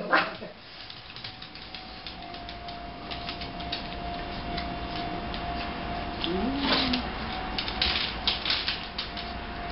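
A small dog's claws clicking and tapping on a hardwood floor as it moves about, the clicks coming thicker in the second half, with one brief low whine about two-thirds through.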